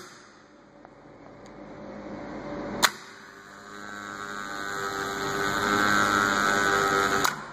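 Contactors of a star-delta starter pulling in with a sharp clack about three seconds in, then a steady electrical hum from the energised coils that grows louder. A second clack near the end marks the timer changing over from star to delta.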